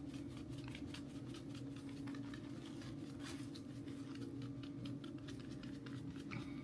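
Old Bay seasoning shaken from its can onto raw tilapia fillets: scattered faint light ticks and patter over a steady low hum.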